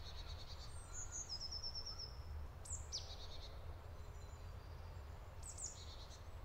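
Faint woodland birdsong: a quick run of high repeated chirps about a second in, a short falling call about three seconds in and a few more chirps near the end, over a low steady rumble.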